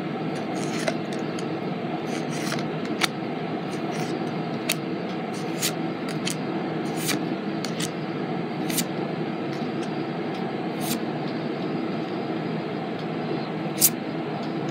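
A stack of Pokémon trading cards being flipped through by hand: a sharp snap or click each time a card is slid off the stack, every second or so, over a steady background hiss.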